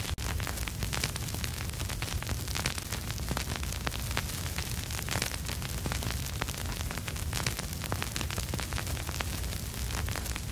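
Vinyl record surface noise with no music: a dense stream of irregular crackles and pops over a steady hiss and a low rumble.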